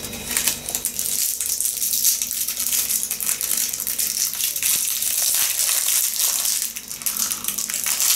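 A candy wrapper crinkling and crackling as a wrapped sweet is unwrapped by hand.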